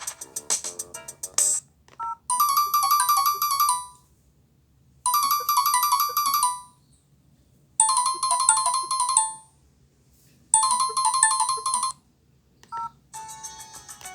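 Nokia ringtone played through an LG B470 phone's speaker: a short, high, bright melodic phrase repeated four times with pauses between. It follows the end of another ringtone, and a different one starts near the end.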